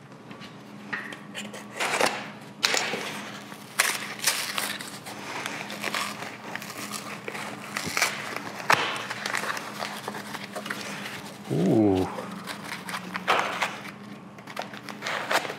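A cardboard shipping box being torn open by hand: packing tape and cardboard flaps ripping in a run of sharp rips and crackles, then packing foam being pulled out of the box. A brief squeak falling in pitch comes about twelve seconds in.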